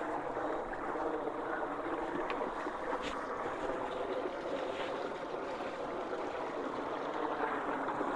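Creek water rushing steadily as it swirls into a huge whirlpool and drains down a freshly unclogged culvert.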